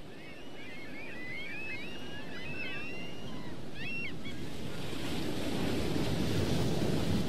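Ocean surf washing on a beach, growing steadily louder. Many birds chirp over it for the first four seconds or so.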